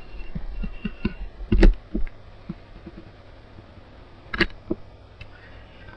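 Pen stylus tapping and clicking on a tablet screen while drawing: scattered light ticks, with two sharper clicks about one and a half and four and a half seconds in, over a low steady hum.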